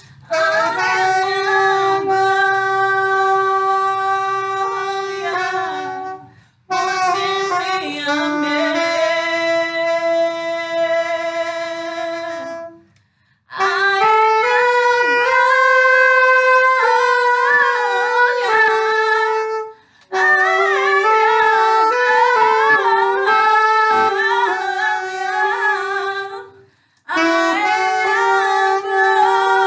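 Saxophone playing a slow worship melody in long held notes, the phrases broken by short breath pauses about every six or seven seconds.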